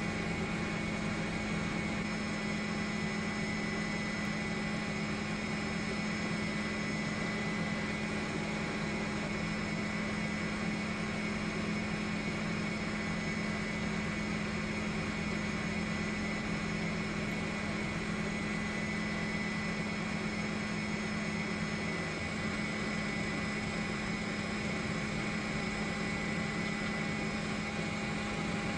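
Steady drone of an aircraft engine, a constant low hum with a high whine over it that does not change in pitch or level.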